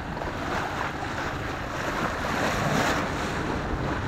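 Sea water rushing and splashing along the bow of a sailboat under way, with wind buffeting the microphone.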